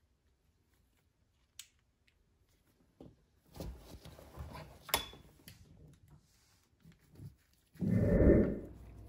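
Handling noises from a plastic trolling motor plug being reassembled by hand: light clicks and rubbing, with a sharp click about five seconds in. Near the end comes a louder, dull bump.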